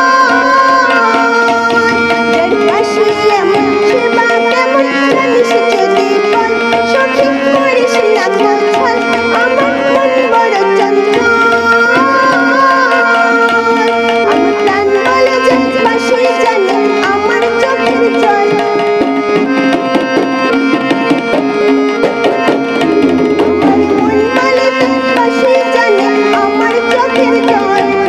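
A woman singing a Bengali folk song to her own harmonium, whose held reed chords sound under the melody, with tabla drumming keeping a steady rhythm.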